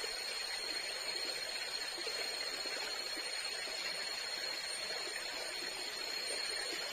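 Tropical forest ambience: a steady rushing sound like flowing water, under a constant high, thin insect whine.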